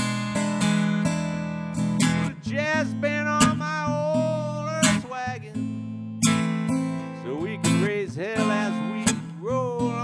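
Stella acoustic guitar playing a fingerpicked blues instrumental break: a melody with bent, sliding notes over steady low bass notes.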